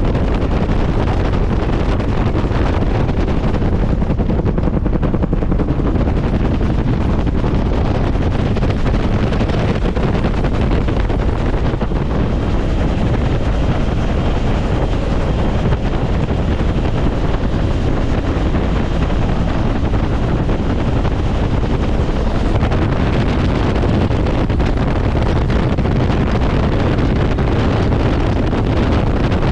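Bell UH-1 Huey helicopter in flight, heard from inside its cabin: a loud, steady rush of engine and rotor noise mixed with wind buffeting the microphone.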